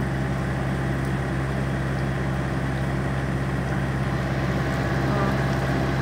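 Refrigerated truck's cooling unit running with a loud, steady motor drone and a constant low hum, heard from inside the truck's cab.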